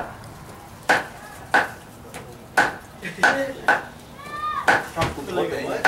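Meat cleavers chopping through raw pork onto a thick round wooden chopping block, with sharp single chops at irregular intervals. A short voice is heard about four seconds in.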